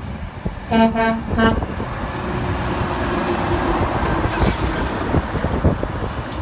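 Semi-truck air horn giving three short blasts, then the tractor-trailer passing close by, its engine and tyre noise swelling to a peak about four seconds in.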